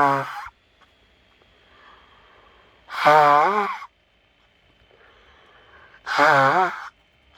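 A woman blowing her nose hard: one honking blow tails off at the start, then two more come about three seconds apart, each under a second long with a wavering, pitched honk.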